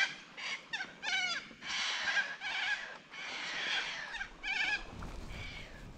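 Birds squawking: a run of about eight harsh, screechy calls in quick succession, some short and some drawn out, fading out near the end.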